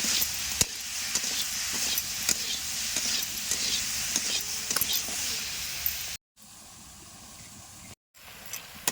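Sliced okra sizzling as it fries in hot oil, with the scrape and clink of a spatula stirring it in the pan. The sizzle cuts off abruptly about six seconds in, leaving a quieter stretch.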